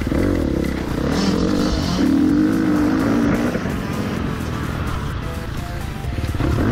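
KTM 350 SX-F's single-cylinder four-stroke engine revving hard as the dirt bike accelerates out of a turn, then easing off for the next turn near the end, with background music mixed in.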